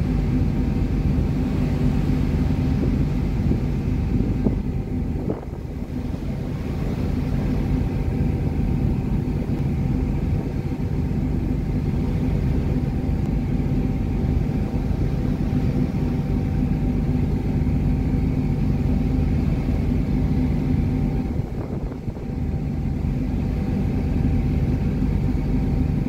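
A ferry's engines and machinery droning steadily, a low hum with a faint higher steady tone above it, dipping briefly twice.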